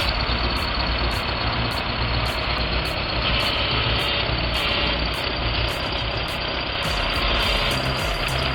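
Heavy earthmoving machine's diesel engine running steadily under load, mixed with background music that keeps a regular beat of about two clicks a second.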